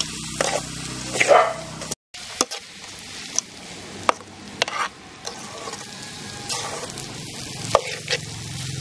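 Ingredients frying in oil in a pan, sizzling steadily while a spoon or ladle scrapes and knocks against the pan as they are stirred. The sound cuts out briefly about two seconds in.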